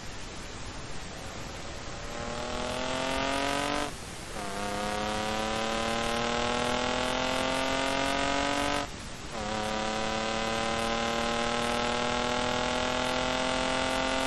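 Engine-swapped BMW E28 accelerating hard, its engine note climbing steadily through the gears. It shifts up twice, about four and nine seconds in, with a short dip in sound at each shift before the note picks up lower and climbs again.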